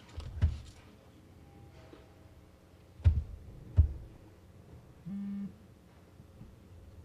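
Low, heavy thumps of a microphone being handled: one near the start, then two close together about three seconds in, with a short flat buzz about five seconds in.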